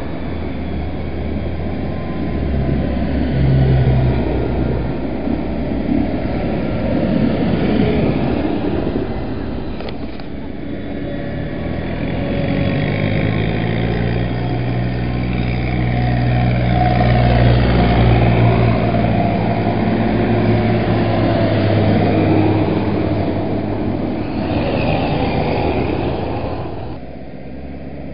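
Tractor diesel engines driving past one after another, each note rising and falling in pitch and loudness as it goes by. It eases off suddenly near the end.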